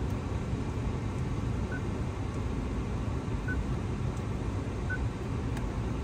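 Three short, faint beeps from a car's dashboard touchscreen as its menu is tapped, over a steady low rumble of the car running, heard inside the cabin.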